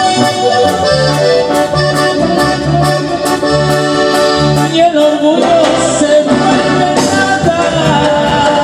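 Tierra caliente band music: an instrumental passage with a lead melody over a steady bass and drum beat.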